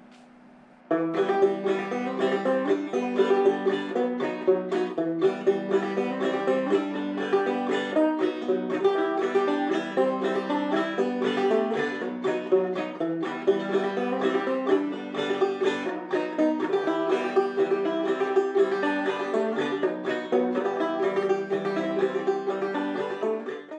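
Background music: a fast plucked banjo tune, starting about a second in.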